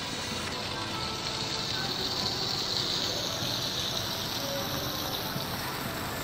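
City street noise: a steady rushing hiss that swells through the middle and eases off again.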